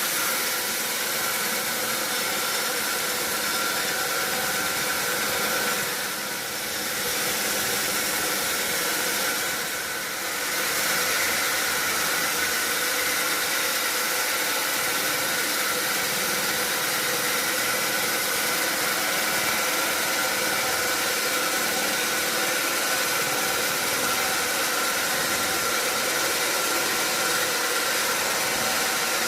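Sawmill machinery running steadily, a dense mechanical noise with a constant high whine, easing off briefly twice, about six and ten seconds in.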